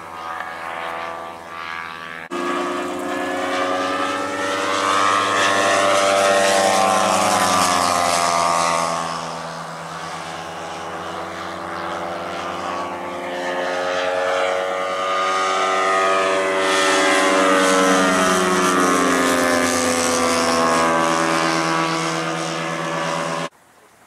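Hirth 520 cc twin-cylinder boxer engine and large propeller of a giant-scale RC Jungmeister biplane model in flight. The engine note swells and fades as the pitch slides up and down through the manoeuvres. It jumps louder about two seconds in and cuts off abruptly near the end.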